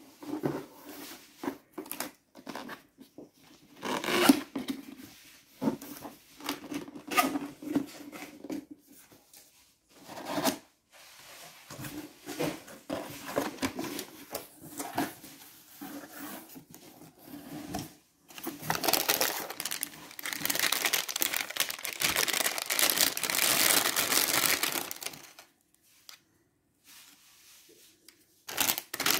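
Cardboard shipping box and foam packing being handled and opened: scattered knocks, bumps and scrapes of cardboard, with a long spell of continuous rustling and scraping about two-thirds of the way through.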